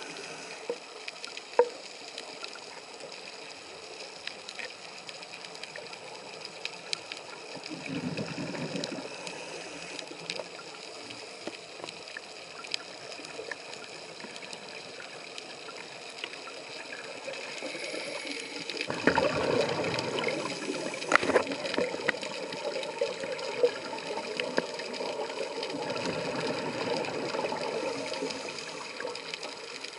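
Underwater scuba regulator exhalations: bubbles rush out three times, the longest about two-thirds of the way through, over a steady hiss with scattered sharp clicks.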